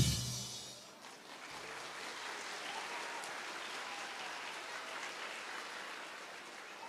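Audience applauding, fairly quiet and steady, after the choir's song ends. The last of the song's music dies away in the first second.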